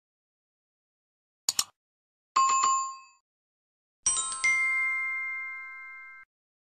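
Subscribe-button animation sound effects: a quick double mouse click, then a short jingling bell ding, then a chime of several tones that rings for about two seconds and cuts off suddenly.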